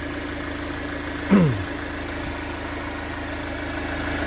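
Chevrolet Captiva's VCDi 16-valve four-cylinder diesel idling steadily with a fine, fast clatter, running on flushing oil to rinse out old oil deposits. About a second in, a brief loud tone falls sharply in pitch across it.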